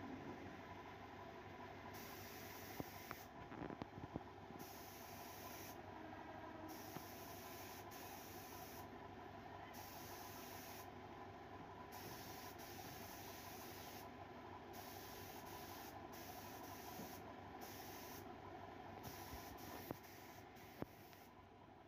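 Faint steady hiss with a few soft knocks from a foam sheet being pressed down and folded back on a plywood board.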